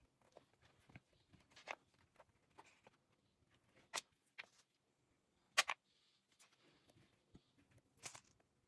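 Small gemstone beads clicking and tapping as they are handled and strung onto beading wire: a few sharp, irregular clicks, the loudest a little past halfway.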